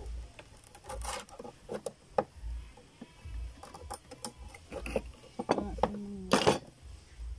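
A large knife chopping and prying at oyster shells on a wooden cutting board: irregular knocks and shell clacks, about one a second, the loudest near the end.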